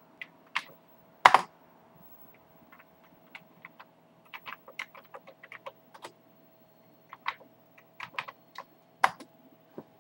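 Keys clicking on a Commodore 128 keyboard as a user ID and password are typed in, in short irregular runs of keystrokes, with one louder clack about a second in.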